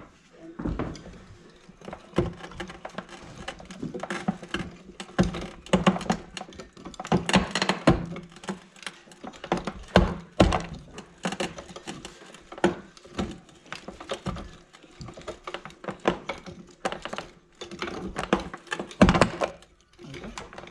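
Chain-style geode cracker biting into a geode: a run of irregular clicks and crunches, with a loud crack about halfway through as the geode splits and chips fly against the clear plastic guard.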